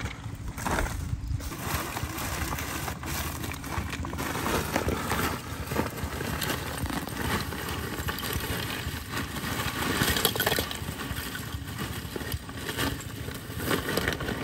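Plastic bag crinkling and rustling as it is handled, over a steady low rumble.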